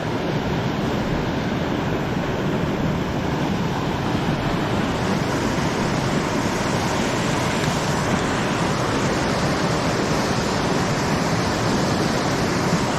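Steady rush of fast river water falling through a gorge, an even, unbroken noise.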